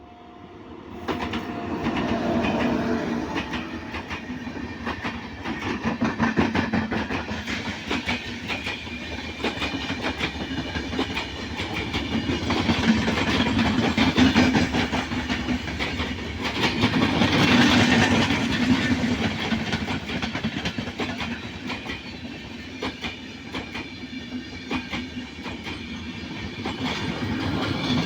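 Indian Railways train running on the track, its wheels clattering over the rail joints in a steady clickety-clack. It starts about a second in and swells louder twice around the middle.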